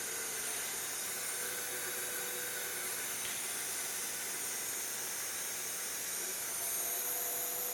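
Powered-up CNC hot-wire foam cutter running idle, a steady hiss with thin high-pitched whines; a lower hum joins about seven seconds in and it gets slightly louder.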